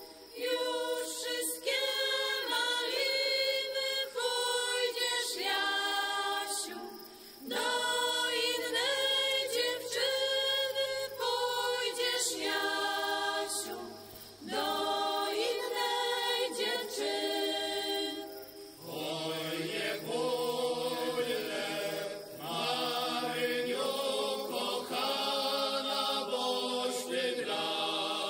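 Unaccompanied Polish folk singing by a small group of men's and women's voices, sung in long phrases with short breaks for breath. About two-thirds in, lower voices come in under the melody.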